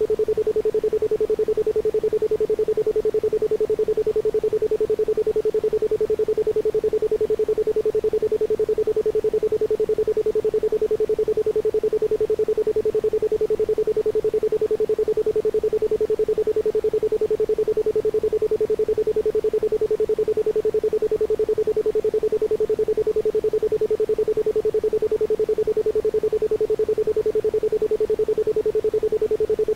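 A 432 Hz isochronic tone: a single pure tone pulsed on and off in a rapid, even rhythm.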